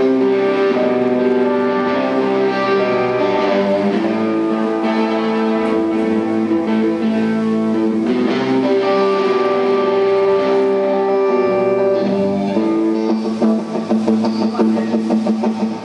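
Electric guitar playing long, sustained melody notes over bass guitar, amplified in a band soundcheck. Near the end the playing breaks into short, choppy notes.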